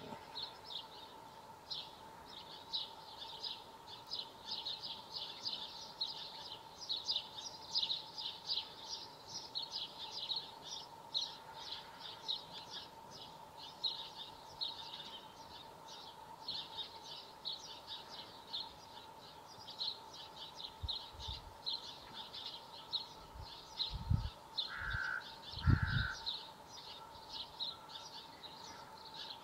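Many rapid, high-pitched bird chirps, continuous and overlapping, over a faint steady tone. A few low thumps come near the end.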